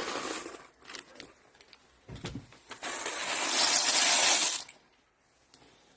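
Cooking handling noises at a camp stove: a few sharp clicks, then a loud steady hiss, like pouring or rushing liquid, for about two seconds that stops suddenly.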